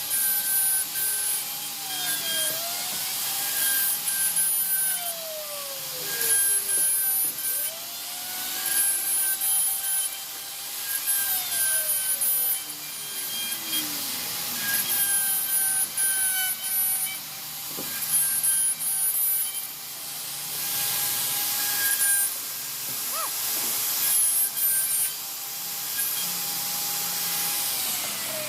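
CNC router cutting wood: the spindle runs with a steady whine, rasping cutting noise swells and fades every second or two as the bit moves through the wood, and now and then a tone slides down in pitch.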